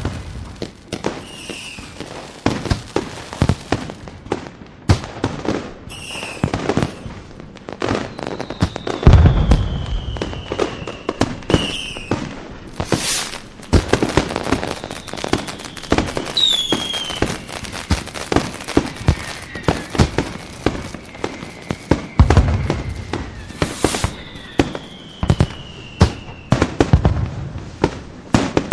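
Fireworks display: a dense run of sharp cracks and crackling, with a few deep booms and several long whistles falling in pitch.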